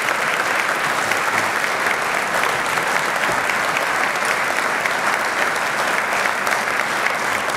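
Large seated audience applauding: dense, steady clapping.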